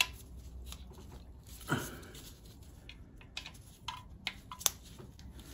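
Light, scattered clicks and taps of a hand tool working the sump bolts as they are snugged up to a firm nip, with a cluster of sharper clicks near the end and one soft thump a little under two seconds in.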